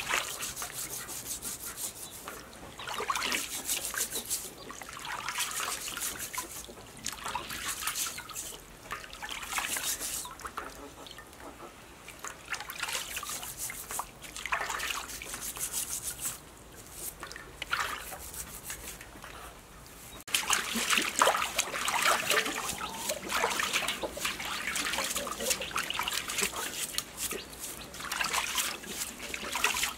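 A steel-wool scrubber rubbing the skin of a smoked pork leg in a steel basin of water, in irregular strokes, with water trickling and splashing. It gets louder and busier about twenty seconds in.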